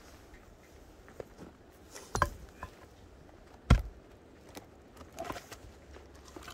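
A few scattered knocks and clunks of handling objects, the loudest about three and a half seconds in.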